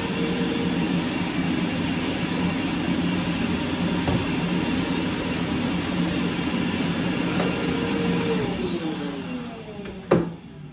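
Vacuum motor of a screen-printing vacuum table running steadily, then winding down with a falling whine about eight and a half seconds in, followed by a single sharp knock.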